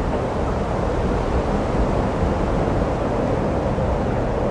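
A steady, even rushing noise, strongest in the low end, with no distinct events.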